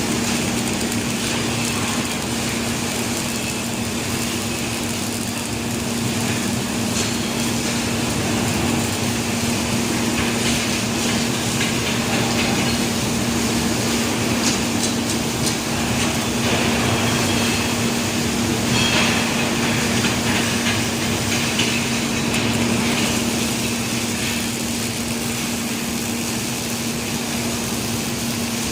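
Robotic arc welding of a motorcycle fuel tank: a steady electrical hum under a continuous hiss with scattered crackles.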